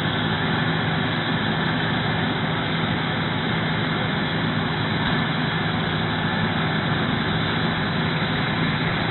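Fire engine's engine running steadily: a constant low hum under an even hiss, with no change in pitch or level.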